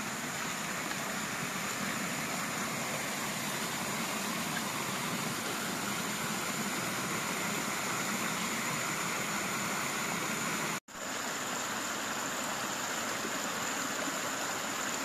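Water running and splashing steadily down the small stone cascades of a man-made stream, with a momentary break about two-thirds of the way through.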